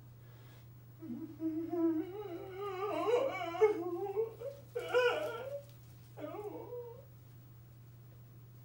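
High, wavering whimpering whine in three stretches, the first and longest running about a second in to four and a half seconds in, then two shorter cries. A steady low hum lies beneath it.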